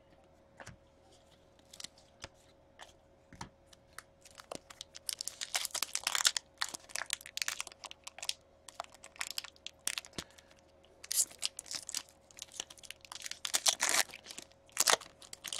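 Trading-card pack wrapper being crinkled and torn open by hand, with dense, irregular crackling and sharp ticks. The first few seconds are nearly silent; the wrapper is stubborn and takes repeated pulls before it gives.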